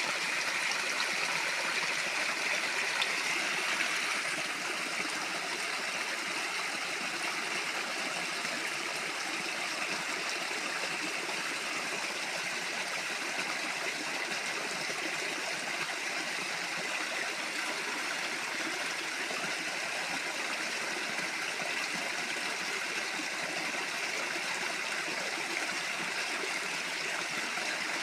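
Small waterfall pouring steadily, a continuous rush of falling water, a little louder for the first four seconds.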